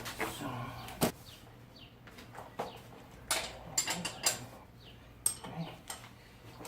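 Hand tools working on a tight nut at the wheel: a string of irregular metal clicks and knocks from a wrench or ratchet.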